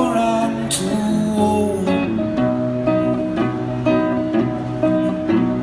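Guitar strumming chords in an instrumental gap of a song, with a steady, regular rhythm of strokes.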